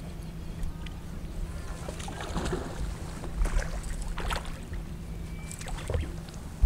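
Steady low hum of a bass boat with wind on the microphone, and several splashes and knocks as a hooked bass is played to the boat and netted. A sudden sharp knock near the end is the loudest sound.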